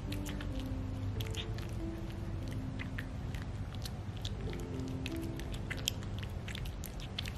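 A cat eating soft, watered-down wet food from a plate: many small, quick chewing and mouth clicks. Background music with held notes plays underneath.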